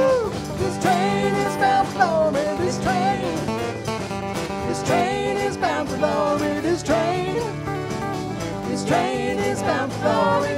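Live band playing an upbeat song on drums, bass, keyboard and guitars, with a lead melody line sliding and wavering over the top.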